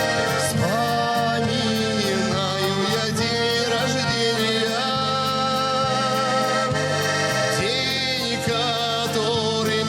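Accordion music: a melody line over a steady bass-and-chord accompaniment, playing an instrumental passage of a Russian folk-style song.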